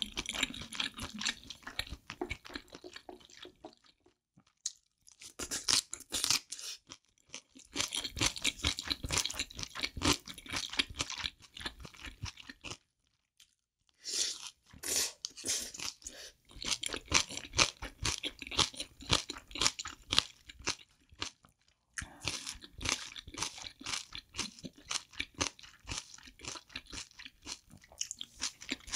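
Close-miked chewing and crunching of a spicy steamed octopus, abalone and bean sprout dish. The irregular wet chews and crisp crunches are broken by a few brief silences.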